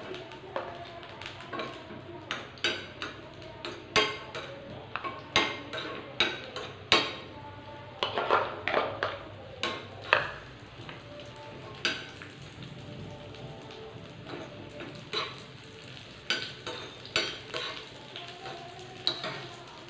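Cashew nuts and raisins frying in about half a teaspoon of ghee in a small pan, sizzling, while a steel spoon stirs them, scraping and tapping on the pan in many short clicks. The clicks come thick for the first half, thin out for a few seconds, then pick up again near the end.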